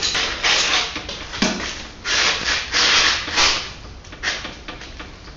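Rubbing and scraping in several bursts of a second or so as a wrench is strained against a stuck nut on a snowmobile engine mount, which will not break loose.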